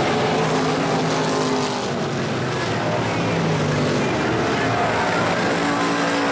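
IMCA stock car V8 engines racing on a dirt oval, running hard and steadily, their pitch rising and falling.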